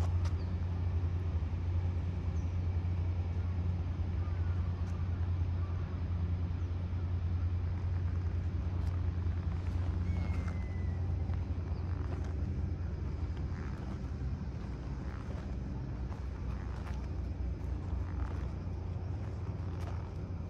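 A steady low engine drone, with scattered faint clicks and one short, high, falling chirp about ten seconds in.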